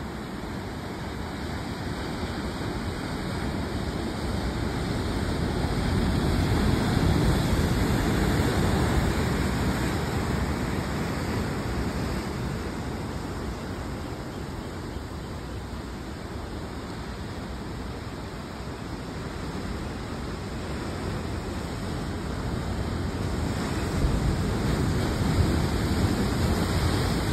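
Ocean surf washing in and breaking on a rocky shore, a steady rush that swells about a quarter of the way in and again near the end, where a wave breaks against the rocks.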